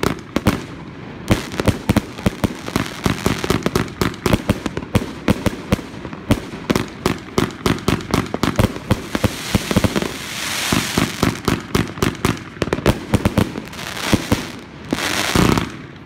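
Jorge Tajfun JW6021 firework battery firing: a rapid string of sharp launch thumps and bursting bangs, several a second. Dense crackling hiss swells up about ten seconds in and again, louder, near the end.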